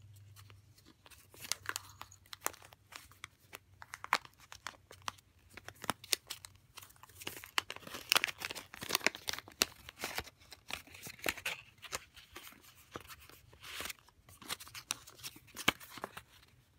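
Small kraft paper envelope being handled and opened, with irregular paper crackles and rustles as a folded paper tag is pulled out of it.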